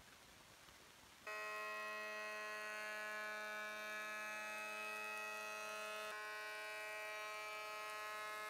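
Electric planer-thicknesser running and planing a softwood beam: a steady machine whine that starts abruptly about a second in.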